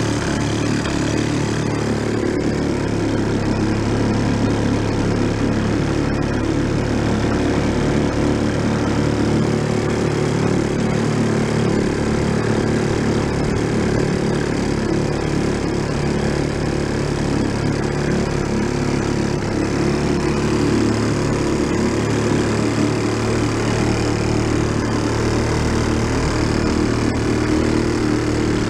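1937 Sears Waterwitch 2.5 hp two-stroke outboard motor running steadily under way, with the wash of its propeller wake behind the boat.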